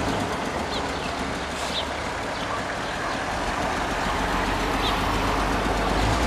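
A truck's engine running steadily as the truck creeps forward and turns slowly.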